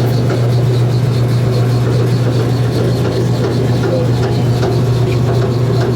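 G.E. screw-drive wheelchair lift's electric drive running steadily with a low hum as the platform rises, with faint rattles from the lightly built cab.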